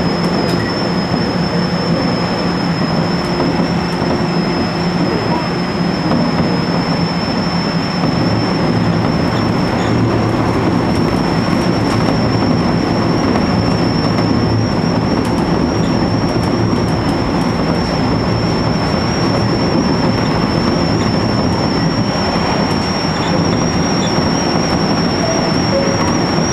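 Running sound of an E127-series electric train (KuMoHa E127-8) heard from the front of the motor car as it travels along the line, with steady rail and motor noise and a steady high whine. A low hum drops in pitch about a quarter of the way in.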